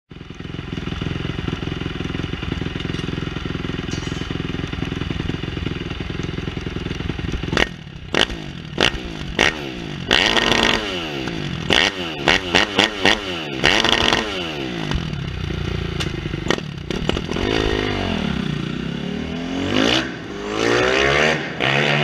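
Freshly rebuilt Kawasaki KX250F's single-cylinder four-stroke engine idling steadily, then blipped sharply about eight times between roughly 8 and 14 seconds in. Near the end it is revved in longer rising and falling sweeps.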